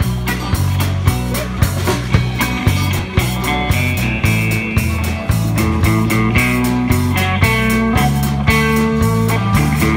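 Live rock band playing loudly: electric guitars, bass guitar and a drum kit keeping a steady beat.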